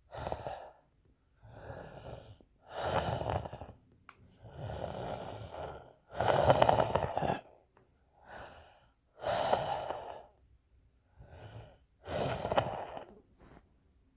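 A person breathing hard and wheezily, about nine noisy breaths in and out, each up to a second or so long, with short pauses between.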